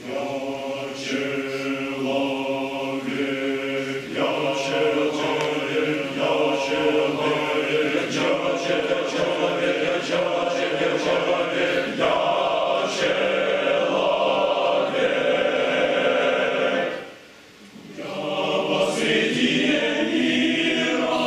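Male choir singing a cappella, starting a song in full, sustained chords; the singing stops for about a second near the seventeen-second mark and then resumes.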